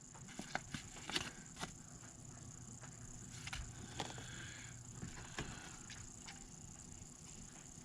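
Faint handling noises: a scatter of light clicks and taps as wireless carp bite alarms are picked up and turned over, most of them in the first two seconds and a few more later on.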